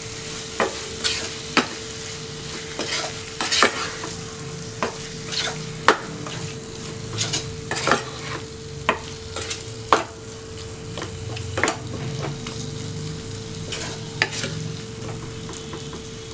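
Wooden spatula stirring chopped tomatoes and ground spice masala in a nonstick pan, with a steady sizzle of frying and irregular scrapes and taps of the spatula against the pan.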